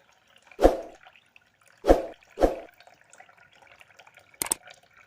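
Faint trickle of water, broken by three loud dull thuds within the first two and a half seconds and a quick pair of sharp clicks near the end.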